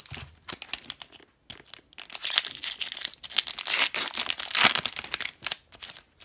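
Foil wrapper of a 2018-19 Upper Deck Series 1 hockey card pack being crinkled and torn open by hand, light rustling at first and then a loud run of crackling and tearing from about two seconds in.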